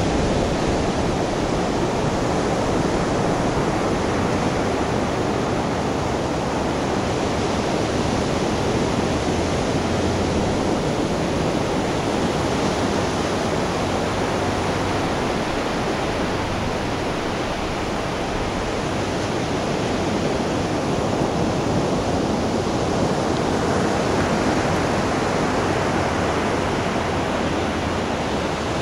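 Steady rushing noise of surf and wind on an open beach, an even wash with no single wave breaks standing out.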